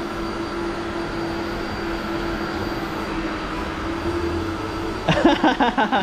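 Stick vacuum cleaner running, its motor giving a steady hum with a high whine.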